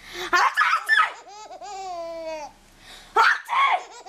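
Baby laughing with a long, high squeal that falls slightly in pitch. Around it are loud, sharp bursts in the first second and again about three seconds in: an adult's exaggerated sneezes, which set the baby laughing.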